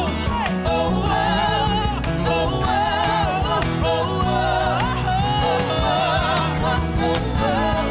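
Live acoustic worship song: several voices singing "whoa oh oh" with vibrato over acoustic guitars, cajon and keyboard.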